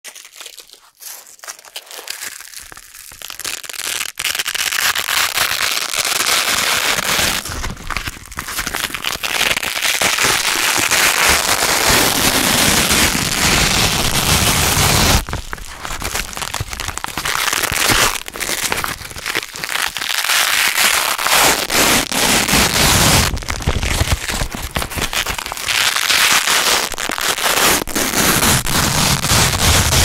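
Velcro hook-and-loop strips being pulled apart again and again, each pull a long, dense, crunchy crackling rip, with short pauses between pulls. The first few seconds are sparser and quieter before the ripping builds up.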